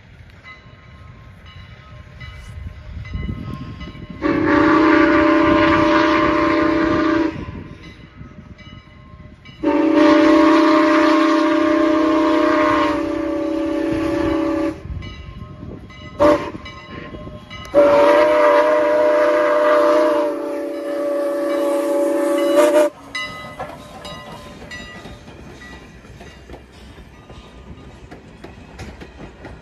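Steam locomotive whistle on Canadian National 89, a 2-6-0 steam engine, blowing the grade-crossing signal: long, long, short, long, each long blast a steady chord of several tones. Then the train's wheels clatter over the rail joints as the passenger cars roll past.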